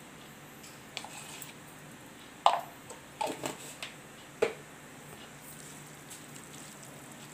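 Cooked mussel meats being handled by hand in a steel plate: a few short knocks and wet squishes, the loudest about two and a half seconds in, with a brief ring from the metal plate.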